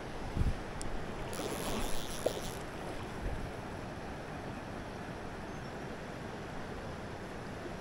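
Steady rush of river current flowing over a riffle, with wind buffeting the microphone in a few low thumps near the start. A brief louder hiss of water comes in about a second and a half in.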